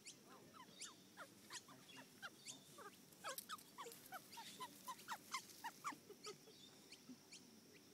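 Australian magpie close by giving a fast run of short, faint squeaky calls, about three or four a second, which thin out near the end.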